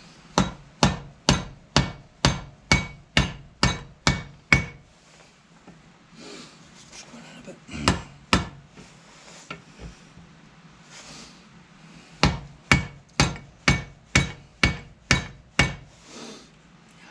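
Hand hammer striking the rivets that hold a new lining onto a David Brown 996 tractor's brake shoe, which is clamped in a bench vise, setting the rivets. A quick run of about ten sharp metallic blows, two more near the middle, then another run of about ten.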